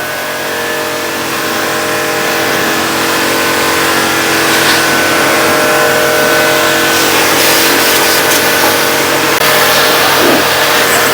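Electric car-wash pressure washer running steadily, its motor hum under the hiss of the water jet spraying the car.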